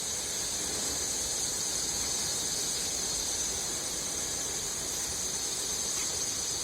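Cable extrusion line machinery running: a steady, high-pitched hiss that holds unchanged throughout.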